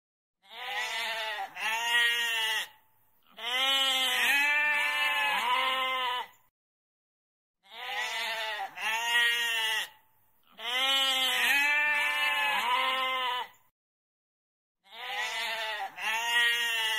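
Goat bleating in bouts. A pair of short bleats alternates with a longer run of four or five quavering bleats, with silent gaps of about a second between bouts.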